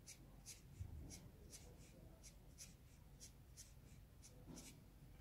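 Felt-tip permanent marker stroking across sketchbook paper in quick, short lines, about three faint scratches a second.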